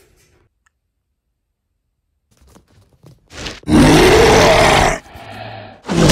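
Monster roar sound effect: after a couple of seconds of near silence, a loud growling roar that rises and falls in pitch for over a second, then a quieter low rumble and a second short, loud blast near the end.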